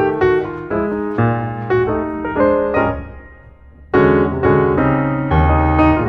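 Background piano music playing a gentle melody; the notes die away about three seconds in and the music picks up again a second later.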